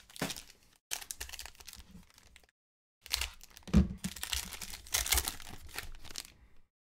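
A foil trading-card pack being torn open and crinkled by hand, in three crackling spells, the longest in the second half.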